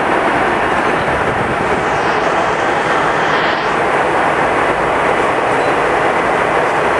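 Steady cabin noise of an airliner in flight: an even, loud rush of engines and airflow.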